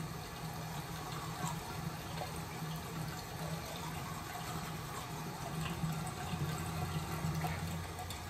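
Bathroom tap running steadily into the sink, with a low hum underneath.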